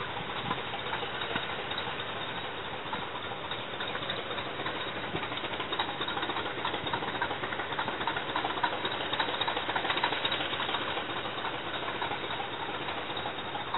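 English Electric diesel engines of a Class 20 and a Class 37 locomotive running with a steady drone that swells a little in the middle and eases off again near the end.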